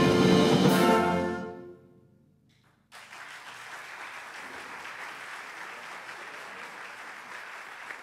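Wind band holding the final chord of a pasodoble, cut off about a second and a half in and ringing away in the hall. After a brief silence, the audience breaks into steady applause about three seconds in.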